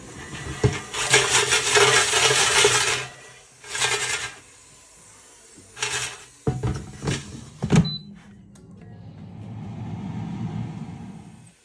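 Fries rattling and clattering in a Gourmia digital air fryer's basket as it is handled, with several sharp knocks as the basket goes back in. Then the air fryer's fan runs with a steady low hum that stops suddenly near the end.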